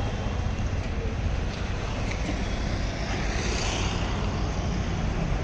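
Maruti Suzuki Eeco van's engine idling steadily, a low hum under faint street traffic noise.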